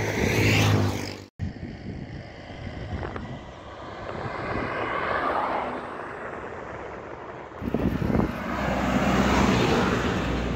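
Road traffic noise with a vehicle swelling past and fading around the middle. Near the end it gives way to a louder steady rumble of wind on the microphone while riding a bicycle along the road.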